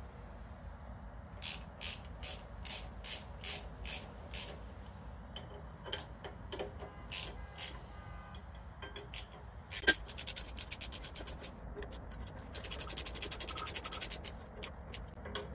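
Hand ratchet clicking while handlebar clamp bolts are tightened: a few separate clicks early on, one sharper click about ten seconds in, then quick runs of clicks as the handle is swung back.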